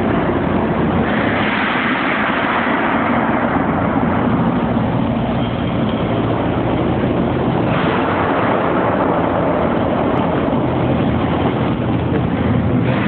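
MIG welder arc crackling steadily, with a low hum underneath.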